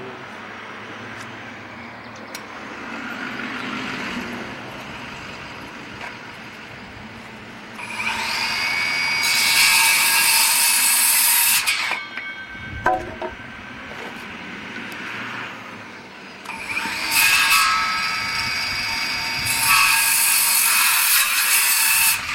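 Power sander running in two loud spells of several seconds each, a high whine over a rough grinding noise. The spells run from about eight to twelve seconds in and again from about seventeen seconds in until just before the end.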